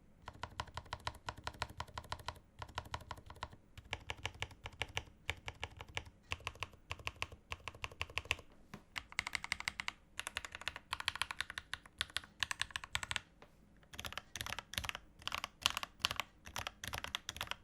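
Fast, continuous typing on a Redragon K552 mechanical keyboard with lubed and filmed Akko CS Piano switches, its case dampened with a silicone mat. The keystrokes come in a rapid run of sharp clicks, broken by a few short pauses, and sound brighter in the second half.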